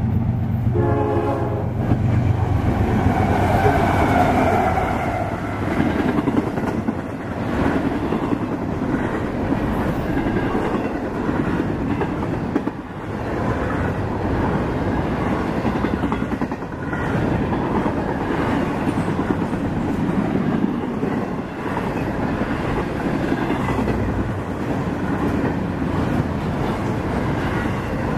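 CSX intermodal freight train passing at speed. The diesel locomotives' engines drone as they go by, with a short horn note about a second in. Then comes a long rumble and clickety-clack of container well cars' wheels over the rail joints.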